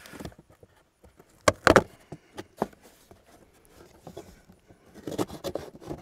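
Cardboard box being cut and torn open: a quick cluster of sharp scraping rips about a second and a half in, then scattered short scrapes and rustles of the cardboard toward the end.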